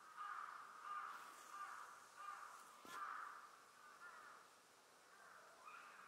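Faint animal calls, harsh and wavering, repeating with short gaps, with a single sharp click about three seconds in.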